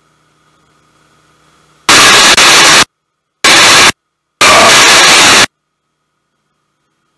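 Three loud bursts of harsh, clipped hiss on the aircraft intercom, starting about two seconds in. They last about a second, half a second and a second, and each cuts in and out abruptly, as a voice-activated headset microphone does when it opens on noise.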